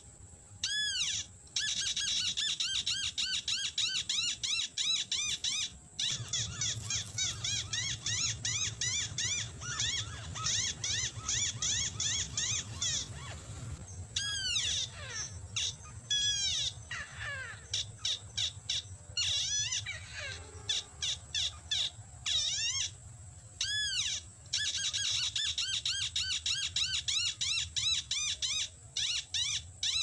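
Rail lure call (sintar / tikusan, the bird being trapped): rapid runs of short chirping notes repeated over and over, breaking off and restarting every few seconds.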